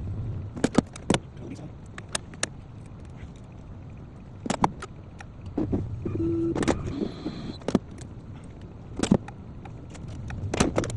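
Scattered sharp clicks and metallic knocks of keys and tools being handled, with a short electronic beep about six seconds in.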